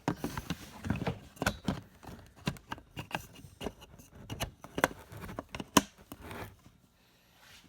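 Irregular plastic clicks, taps and rustling as a turn signal housing and its wiring are pushed through the plastic Jeep Wrangler JK grill; the handling noise dies down near the end.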